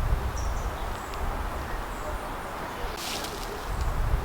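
Outdoor ambience: gusts of wind rumbling on the microphone, with a few faint, short bird chirps and a brief rustle about three seconds in.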